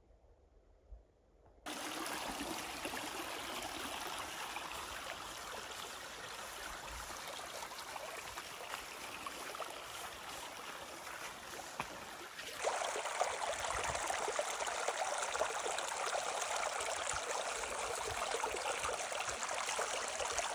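A shallow stream of water trickling and running over stones in a rocky channel. It is a steady rushing sound that starts about two seconds in and becomes louder and fuller about two-thirds of the way through.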